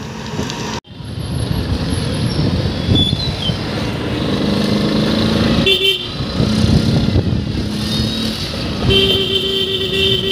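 Town street traffic: motor vehicle engines and road noise, with a vehicle horn honking briefly about six seconds in and again for over a second near the end.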